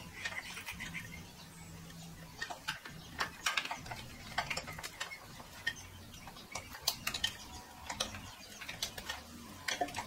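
Irregular light metallic clicks and clinks of a spring puller and the brake pedal's return spring being worked on at the pedal pivot, as the spring is hooked back on.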